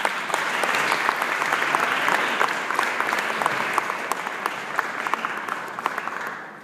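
Audience applauding, a dense patter of hand claps that fades away near the end.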